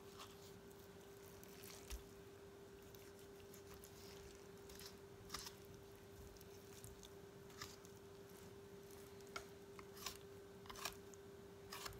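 Faint wet squishes and small clicks of a knife slicing raw chicken breast meat away from the breastbone, scattered irregularly, over a steady faint hum.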